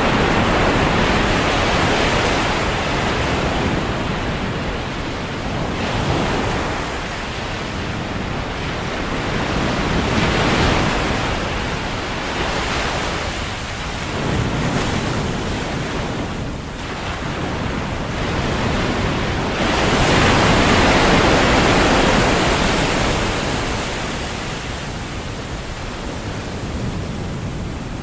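Ocean surf washing onto a sandy beach: a steady rush of noise that swells and eases every few seconds as waves break.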